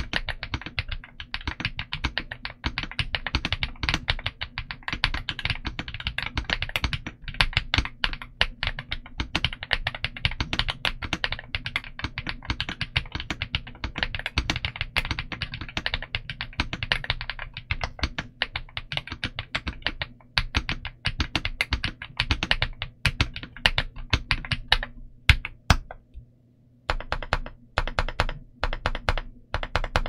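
Typing on a stock Ajazz AK35i V3 Max full-size gasket-mounted mechanical keyboard fitted with Ajazz Avocado linear switches: fast, continuous keystrokes. Near the end the typing stops for about two seconds, then comes back in shorter runs of keystrokes.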